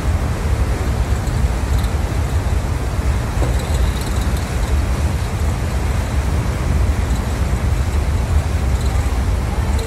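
Steady low rumble and rushing noise at the stern of a moving ship: engine and propeller wash churning up the wake, with wind buffeting the microphone.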